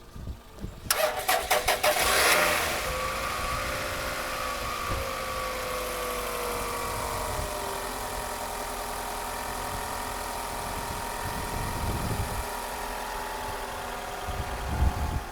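Van engine cranked by the starter for about a second and a half, then catching and running at a fast idle that drops and settles into a steady idle: starting again after its battery had gone flat from weeks of sitting unused.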